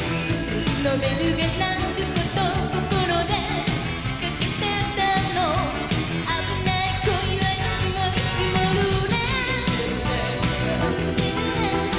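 1980s Japanese pop song: a woman singing the lead melody over a band with a steady drum beat, guitar and keyboards, with backing vocals.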